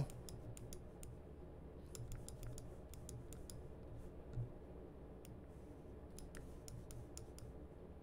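Faint, irregular clicks of a computer mouse, its buttons and scroll wheel, over a low steady room hum.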